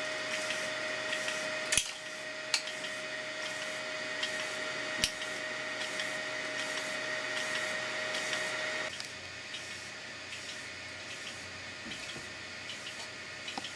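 3D printer extruder stepper motor running through rapid repeated filament retractions, with a steady whine and light ticking. A few sharp clicks come through, and the whine stops suddenly about nine seconds in.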